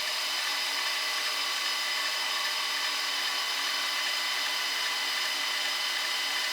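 Metal lathe turning aluminum bar stock: a steady machine whine with several high tones over even cutting noise, unchanging throughout.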